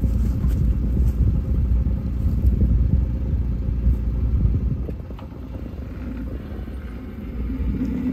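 Kawasaki Mule side-by-side utility vehicle's engine running at idle, a low rumble, picking up near the end as it pulls away towing a small trailer.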